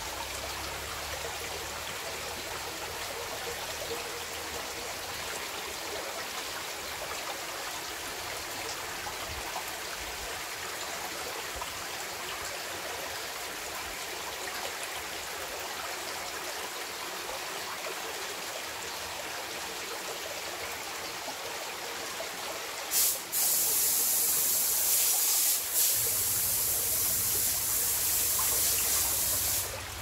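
Mountain stream water running over rocks, a steady babbling rush. About two-thirds of the way through, the rush turns abruptly louder and hissier for several seconds, then drops back.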